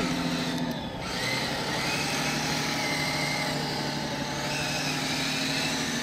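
Kyosho Blizzard SR RC snowcat driving on its aluminum tracks: a steady electric motor and drivetrain whine with a low hum, briefly dipping just under a second in.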